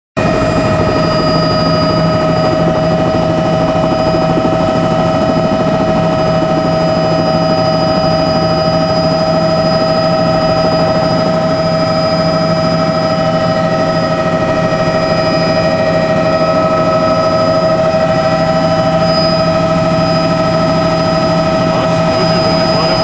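Light aircraft's engine and rotor or propeller drone heard from inside the cabin: a loud, steady drone with several steady whining tones over it.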